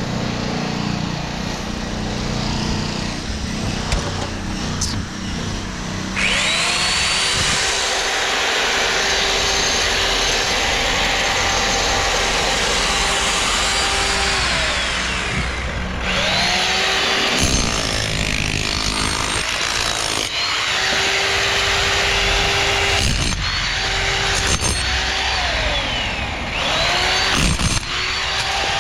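An electric power tool motor is run several times. It spins up at about six seconds in, runs steadily for about eight seconds and winds down. It is then switched on again in several shorter runs of two to three seconds, each rising to speed and falling away. Duller work noise fills the first few seconds.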